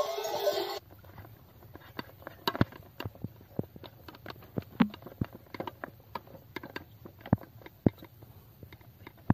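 Music cuts off about a second in. Then hands knead soft dough in an aluminium pot, making irregular sticky clicks and squelches.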